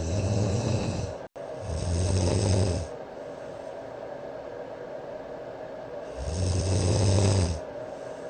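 A man snoring heavily in his sleep: three loud rasping snores, each about a second and a half long, with a longer pause before the third. They play back from a phone sleep-tracking app's recording over steady background noise.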